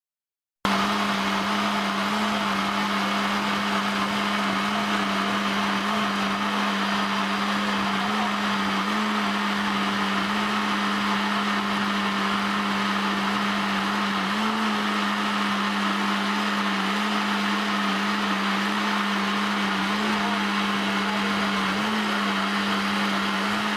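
Philips countertop blender running at a steady speed, blending dried chillies, garlic and belacan into a smooth red chilli paste. A steady motor hum with a whirring rush over it, switching on suddenly about a second in.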